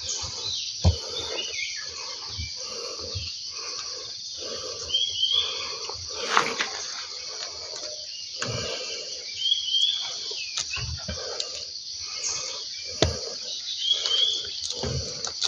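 A steady high-pitched insect drone with a few short bird chirps, over rustling and occasional soft knocks as durian fruits are handled and set down on the dirt.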